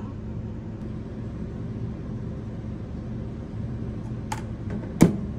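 A steady low mechanical hum, like a fan or appliance motor, with a couple of light clicks near the end. These are followed by one sharp knock, the loudest sound, as something hard is set down or tapped.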